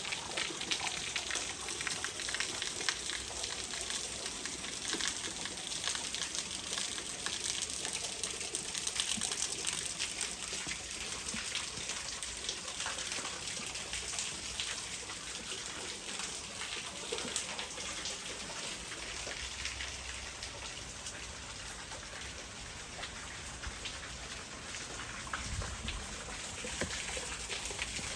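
Running water of a small stream splashing and gushing steadily.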